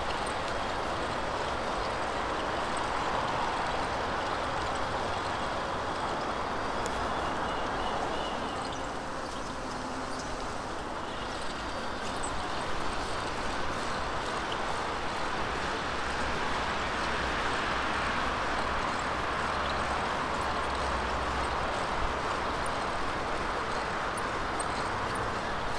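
Steady rushing of strong wind and road traffic heard from a moving bicycle, with low rumbles of wind buffeting the microphone, strongest in the second half.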